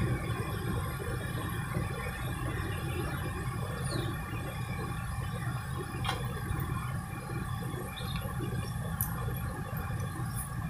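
Steady machinery hum: a constant low rumble with several steady tones above it. A faint click comes about six seconds in.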